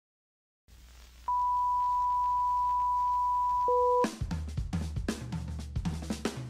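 A low hum, then a steady high test-tone beep of the kind played with TV colour bars; a second, lower tone joins it shortly before it cuts off. About four seconds in, background music with a drum-kit beat takes over.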